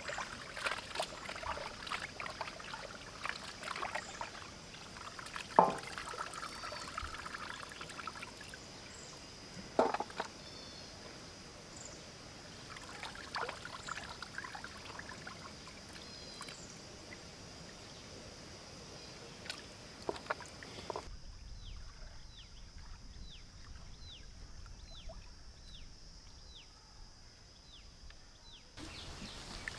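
Water splashing, pouring and trickling as raw chicken pieces are washed by hand in a pan of water, with a few sharp knocks of a steel plate against the pan. A quieter stretch near the end carries short high chirps about once a second.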